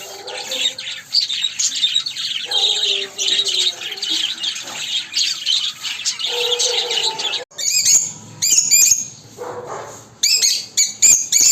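A flock of budgerigars and lovebirds chattering and chirping. About seven and a half seconds in, the dense warbling chatter breaks off and gives way to louder, separate shrill chirps repeated in quick bunches.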